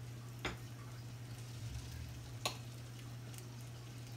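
Faint, steady sizzling of two flour-dredged whole trout frying in butter in a skillet, with two sharp clicks about half a second and two and a half seconds in.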